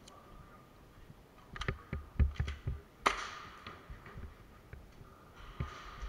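A run of sharp clicks and low knocks from airsoft play on a concrete floor, then one louder sharp crack about three seconds in that rings out in the large hall.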